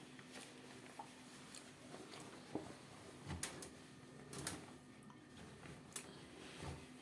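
Ariston 4.5 kg front-loading washing machine in the early part of a wash, a low steady hum under scattered soft knocks and clicks from the turning drum and wet laundry.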